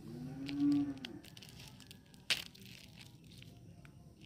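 Hand crinkling and pressing a water-filled plastic bag, with scattered small crackles and one sharp crack a little over two seconds in. A short hummed voice sounds near the start.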